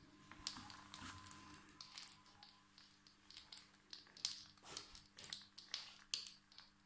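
Faint scattered ticks and soft crackles from a thin, ghee-layered roti on a hot dry tawa, with a light rustle at first as hands press and shift it. The ticks come more often from about three seconds in, over a low steady hum.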